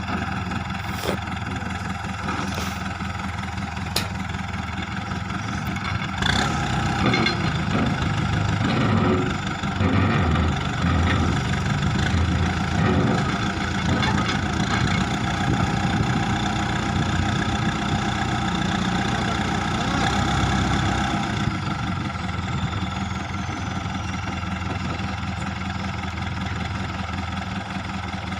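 Terex 740S backhoe loader's diesel engine running steadily. It grows louder and more uneven from about six seconds in as the machine works, then settles back to a steady idle after about twenty seconds.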